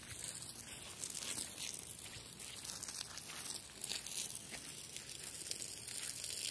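Footsteps crunching and crackling on dry pine needles and grass, a few soft crunches at an uneven pace.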